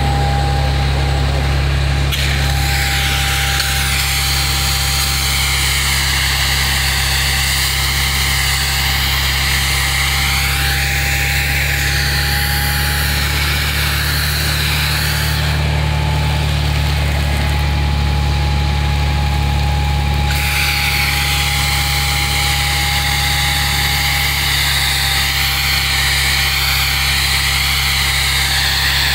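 The engine of a 1957 International R185 Pirsch pumper fire truck runs steadily while its fire pump throws a high water stream. There is a steady high whine and the hiss of the spray, which eases off for a few seconds in the middle.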